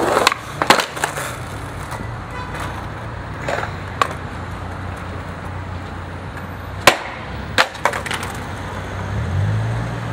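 Skateboard on stone paving: the tail pops and the deck clacks down in a missed trick, followed by scattered sharp wooden smacks, the loudest about seven seconds in as the board is slammed onto the ground. A low steady traffic rumble runs underneath.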